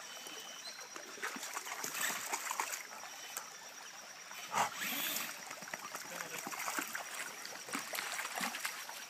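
Shallow rocky creek trickling over stones, with scattered small splashes and knocks on the stones. The loudest is a sharp knock about four and a half seconds in.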